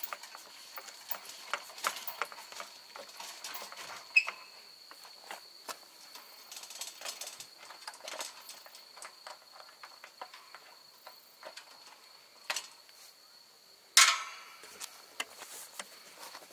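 A steady high-pitched cricket trill runs under scattered small clicks and knocks, with one loud clank that rings briefly about fourteen seconds in.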